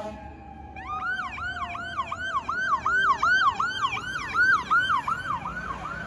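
Fire apparatus electronic siren in a fast yelp, about three rising-and-falling cycles a second, starting about a second in. Underneath, a second siren tone slides slowly down in pitch.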